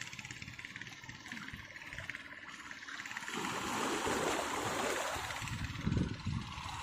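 Waves washing and splashing over shoreline rocks in shallow water, louder from about three seconds in.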